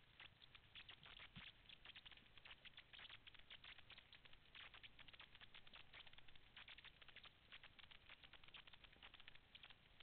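Faint underwater crackle of a rocky reef, made by snapping shrimp: a dense, irregular patter of tiny clicks.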